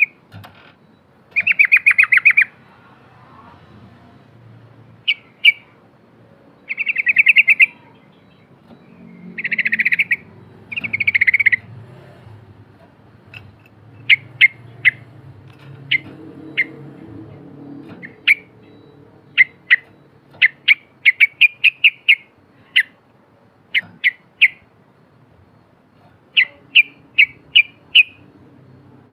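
Yellow-vented bulbul (trucukan) singing. There are a few buzzy, rattling phrases about a second long in the first half, then quick runs of short, sharp notes.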